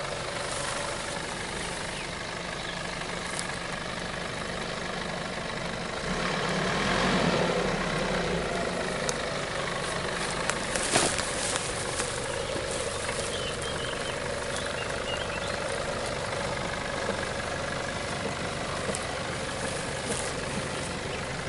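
Nissan Patrol 4x4 engine running at low revs as the vehicle crawls slowly over a rutted off-road track, the engine note swelling briefly about six to eight seconds in. A single sharp knock sounds about eleven seconds in.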